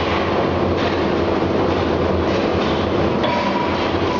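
Steady, loud drone of forge-shop machinery with a low hum, as from the hydraulic drive of an Anyang C92K CNC die forging hammer running between strokes. No hammer blows are struck; a faint high tone joins about three seconds in.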